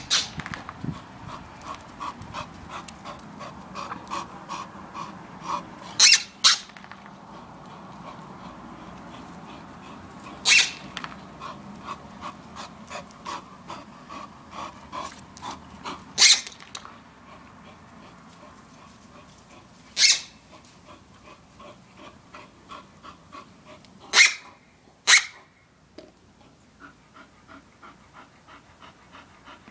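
Bull Terrier panting fast, about three breaths a second, and letting out several short, sharp barks. Two of the barks come in quick succession about six seconds in, and two more near the end.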